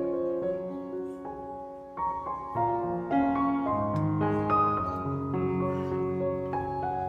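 Background music: a soft piano melody with sustained chords.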